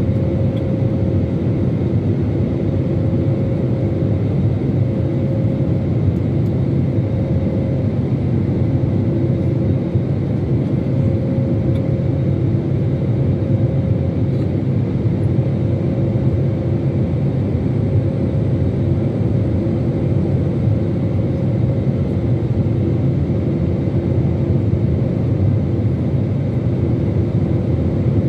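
Steady cabin roar of a jet airliner in flight: a low rumble of engine and airflow noise with a faint steady hum from the turbofan engines.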